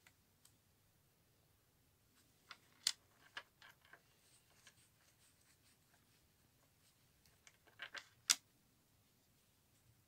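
Small metal clicks and ticks of silver charm-bracelet pieces being handled between the fingers, in two short clusters about three and eight seconds in. The sharpest click comes near the end.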